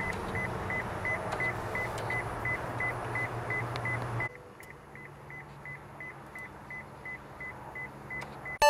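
A car's electronic warning chime beeping over and over inside the cabin: short, evenly spaced high beeps, about two and a half a second, over a low cabin hum that drops quieter about four seconds in.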